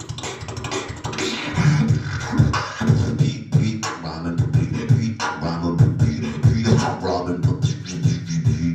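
Beatboxing into a handheld microphone and amplified: a quick run of sharp mouth-made clicks and snares over a low, pitched bass line.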